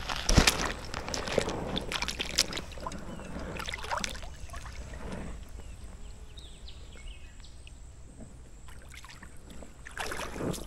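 Someone wading through shallow marsh water, sloshing and splashing in uneven strokes, busiest over the first few seconds, quieter in the middle and picking up again near the end.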